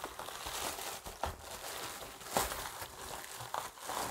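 Metallic anti-static bubble-wrap bag around a graphics card crinkling and rustling as hands handle it and work the card out, with a few sharper crackles.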